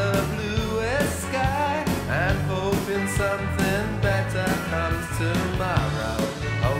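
Rock song playing, with a singing voice over a drum beat and bass.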